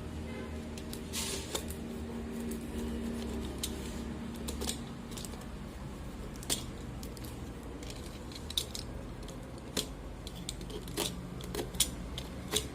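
Handling and opening a tripod's packaging: scattered clicks, taps and rustles, over a steady low hum.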